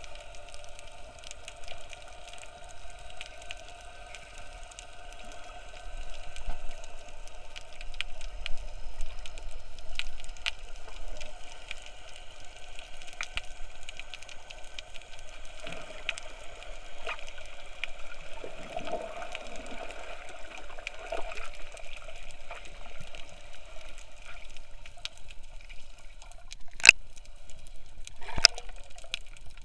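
Underwater sound picked up by a Yi action camera held below the surface over a reef: a steady hum with many scattered faint clicks and crackles. Near the end come two sharp, loud splashes as the camera comes up to the surface.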